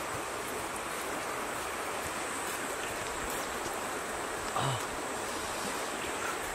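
Steady rush of flowing river water, with one soft low thump about four and a half seconds in.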